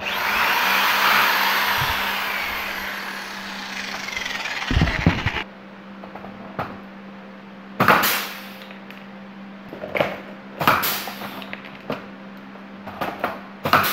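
Pneumatic pop-rivet guns setting aluminium blind rivets: a loud rush of air that fades over the first five seconds or so, then a string of about eight short, sharp pops at uneven spacing, over a steady low hum.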